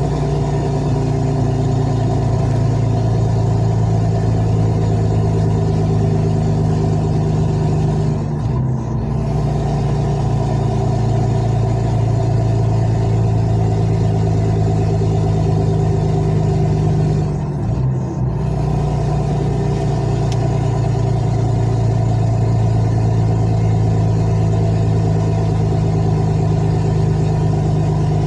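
Vehicle engine running steadily under way, a loud low drone, with two short breaks in it, about a third and two thirds of the way through, where the engine note drops and picks up again.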